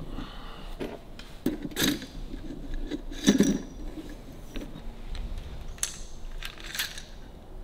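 Metal clinks and rattles of coil springs and small steel parts being slid onto a Harley-Davidson WLA seat post rod, a handful of sharp clinks with the loudest a little over three seconds in.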